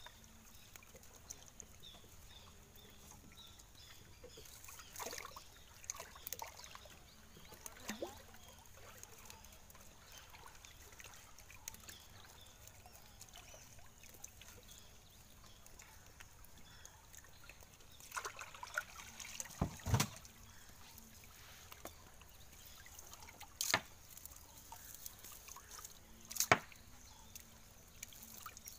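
Shallow water sloshing and trickling as a netted fish is handled and pulled free of a gill net, with a few sharp sudden sounds, the loudest about twenty seconds in.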